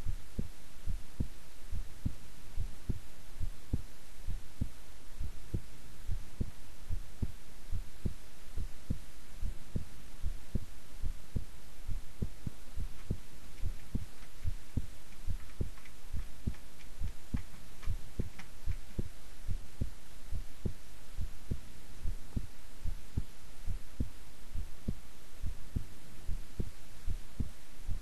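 A woman's heartbeat at rest: low thuds in a steady, even rhythm over a low hum.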